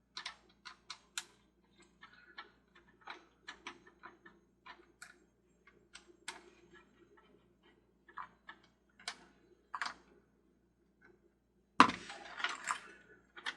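Irregular small clicks and taps of a screwdriver and small plastic and metal parts as a toy carousel's motor cage is taken apart, with a louder clatter of parts near the end.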